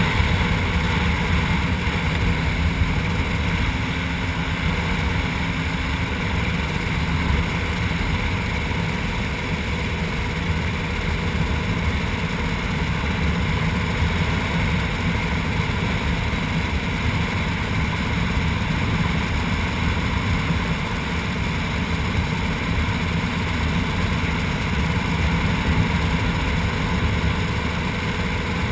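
KTM 300 EXC two-stroke enduro engine running steadily while the bike cruises on pavement, with wind rushing over the microphone.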